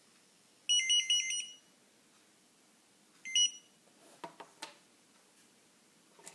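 Opticon OPN-2002 barcode scanner giving a harsh, choppy electronic buzz for about a second, then a shorter burst a couple of seconds later, followed by a few light clicks. The buzz comes while the scanner is active and is taken by the owner for a fault.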